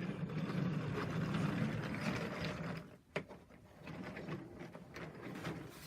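A small motor whirring steadily, which stops about three seconds in, followed by a single sharp click.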